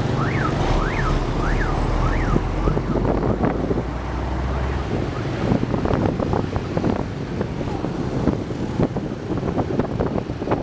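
Street traffic, with an electronic siren wailing up and down about every half second for the first three seconds over a low engine rumble. The rumble stops about five seconds in, leaving traffic noise and motorbike engines with some wind on the microphone.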